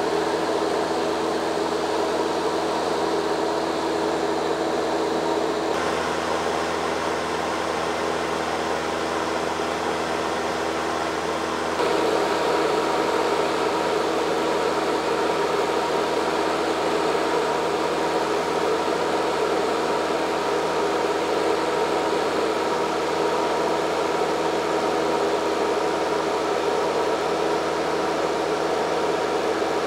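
Inside the cabin of a light high-wing propeller plane in cruise: the engine and propeller drone steadily under a hiss of wind. The sound shifts slightly about six seconds in and grows a little louder about twelve seconds in.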